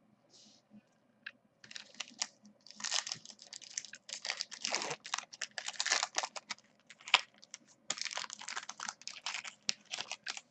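Trading cards and their foil wrapper being handled: quick irregular crinkling and clicking as cards are shuffled and the packaging is worked, starting about a second and a half in.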